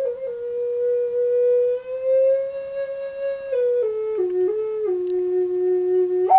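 A slow solo melody on a flute-like wind instrument: long held notes that rise a little, then step down in pitch over the last few seconds, ending on a sudden higher note before it stops.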